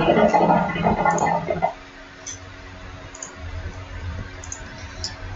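Computer mouse clicking: several short, light clicks spread through the quieter stretch. A louder, rough noise with no words fills the first second and a half.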